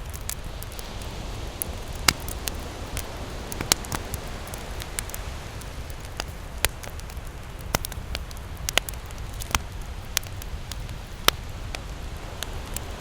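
Fireplace fire crackling: irregular sharp pops and snaps, several louder ones a second or so apart, over a steady low rumble of the flames.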